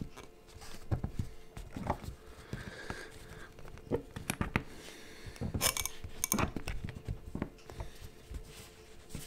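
Hands working on a small cinewhoop drone: scattered clicks and light knocks as its propeller ducts are pushed down onto the frame's standoffs, with a busier run of clicks about halfway through.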